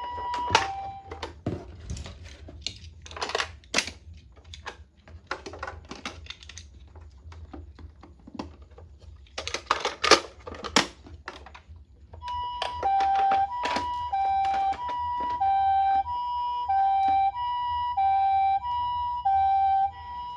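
A toy ambulance's electronic two-tone siren, alternating between a high and a low note in the Japanese ambulance 'pee-po' pattern, cuts off just after the start. Then come scattered clicks and plastic knocks from the toy cars being handled. About twelve seconds in the siren starts again and keeps alternating steadily, each note lasting about half a second.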